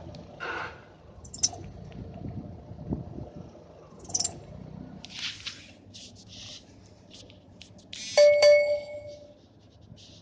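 Chevrolet Cruze giving a short whistle, about a second long, some eight seconds in as it pulls away in reverse, after scattered clicks and brief hissy rustles. The owner suspects the clutch release bearing may be the cause.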